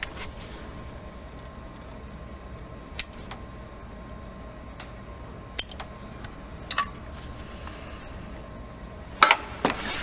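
Scattered sharp clicks and snips of hand tools and wire being handled on a car's wiring harness ground, the loudest pair near the end, over a steady low hum.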